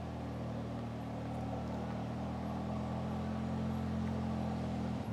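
An engine idling steadily, a low even hum with no change in speed.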